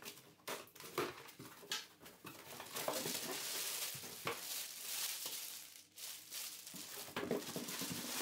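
Cardboard box being opened by hand: scattered knocks and scrapes of the cardboard flaps, with a longer stretch of rustling a few seconds in, and a plastic-wrapped package crinkling near the end.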